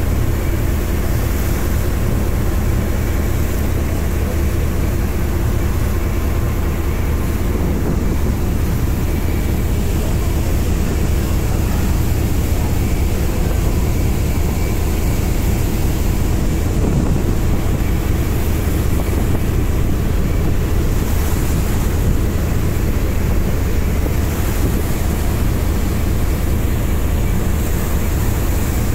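A boat's engine droning steadily, heard from on board, with water rushing past the hull.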